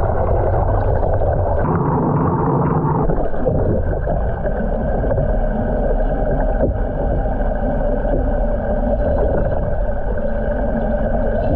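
Water churning steadily as it swirls in a vortex tank, with a faint steady hum running under it.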